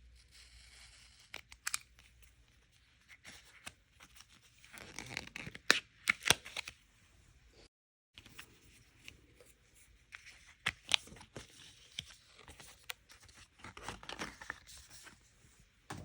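Small packet packaging being torn open and rustled, with light clicks and taps of cards being handled; the rustling gets louder about five seconds in and again near the end.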